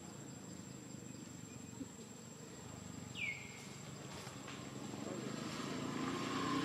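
Outdoor ambience: a steady high-pitched insect whine, one short squeak falling in pitch about three seconds in, and a low hum that grows louder over the last couple of seconds.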